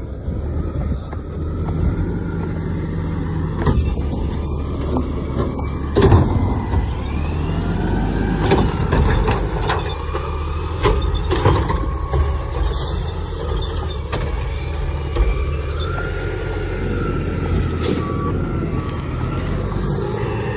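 Natural-gas front-loader garbage truck with a Curotto-Can arm running while its hydraulics lift a recycling cart over the cab and empty it, with a whine that rises and falls and several sharp clanks and bangs from the cart and arm, the loudest about six seconds in.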